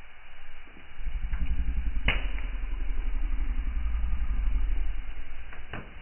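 Wood fire burning in a fireplace: a steady low rumble, with a sharp crackling pop about two seconds in and another near the end.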